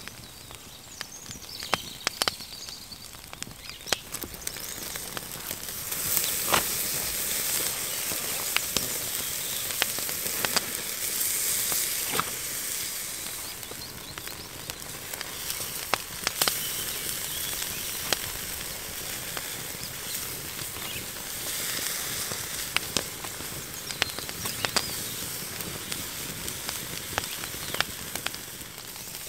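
Glazed pork spare ribs sizzling on a wire grill over an open wood fire, with sharp crackles and pops from the fire now and then. The sizzle swells louder for several seconds in the middle.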